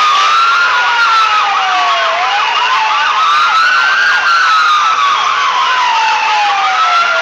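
Several sirens sound together: a slow wail rising and falling about every three seconds, with quicker yelping sweeps over it.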